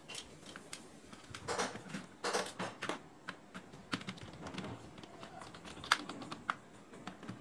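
Screwdriver turning a screw out of a plastic toy gun's shell: scattered light clicks and taps of metal on plastic, with a sharper click near the end.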